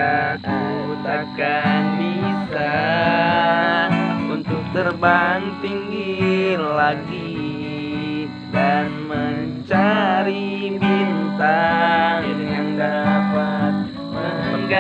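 Acoustic guitar strummed in chords, with a voice singing a melody along with it.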